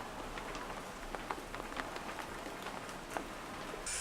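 Rain falling, with a steady hiss and many irregular drop-ticks pattering on a surface.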